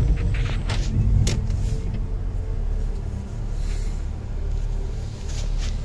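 Steady low road rumble inside a moving car, with a few sharp clicks about a second in and again near the end.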